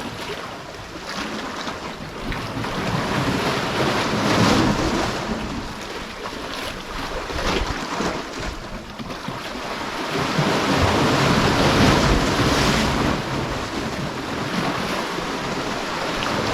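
Sea waves washing against the shore, swelling and ebbing twice, with wind buffeting the microphone.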